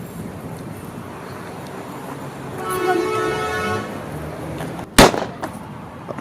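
Vehicle horn giving one steady toot of about a second over street background noise, followed near the end by a single sharp, loud bang.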